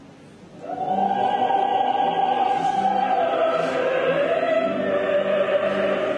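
Large mixed choir singing full, sustained chords. It comes in loudly after a hush less than a second in and tapers off near the end.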